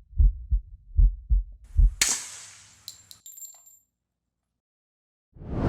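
Deep thumps in heartbeat-like pairs, about one pair a second. The last pair runs into a sharp hit with a ringing high tail about two seconds in, which fades out. Near the end a loud, rushing blast starts abruptly.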